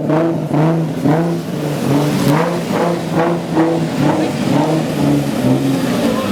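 Twin-turbo Nissan 350Z drift car's V6 engine revving up and down over and over, about two swings in pitch a second.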